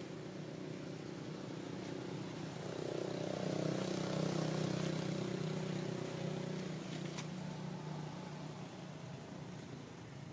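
A motor vehicle's engine hum passing by: it grows louder over the first few seconds, then fades away.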